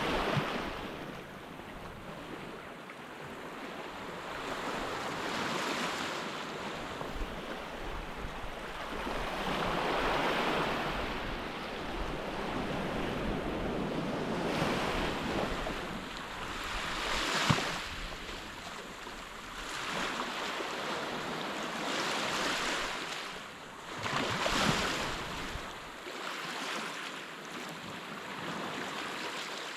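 Surf on a sandy beach: small waves washing in and breaking, the noise swelling and fading every few seconds.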